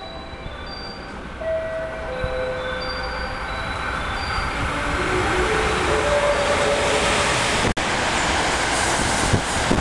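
JR West 683-series Thunderbird limited express electric train approaching and running past the platform at speed. Its rush of wheels on rail and air builds from about four seconds in and stays loud. Short scattered tones sound over it in the first half.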